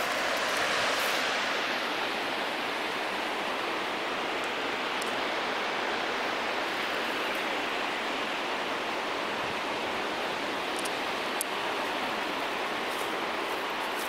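Steady rush of falling water from a mountain waterfall: an even hiss without pauses, a little louder in the first couple of seconds, with a few faint ticks over it.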